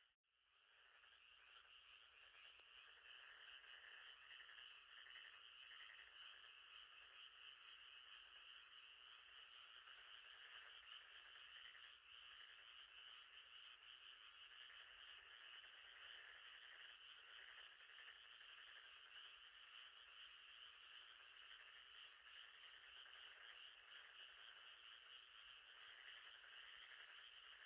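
Faint, steady night chorus of frogs calling, a dense mass of rapid trilling pulses. It briefly drops out at the very start, then comes back within a second or so.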